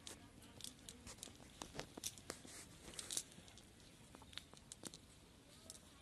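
Faint, irregular crackling rustle and soft clicks of a cast net's mesh being pulled up and shaken out by hand.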